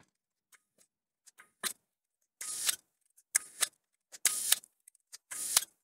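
Asahi Pentax Spotmatic's mechanical shutter and mirror being fired and wound at the 1-second speed: a few faint clicks, then four short clattering bursts about a second apart. The mirror is returning and the slow speed is working, now that the slow-speed gears have been oiled.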